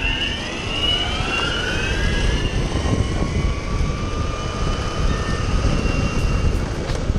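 Electric skateboards (a Riptide R1 and a Boosted Board V2 Dual+) accelerating hard from a standing start: their electric motors whine, rising in pitch for the first couple of seconds and then holding steadier as the boards reach speed, over a constant rumble of wheels on asphalt and wind on the microphone.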